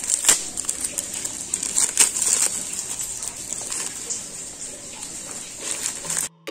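Thin black plastic polybag being pulled open and its sides peeled apart by hand: crinkling and rustling of plastic with many sharp crackles. The sound cuts off suddenly near the end.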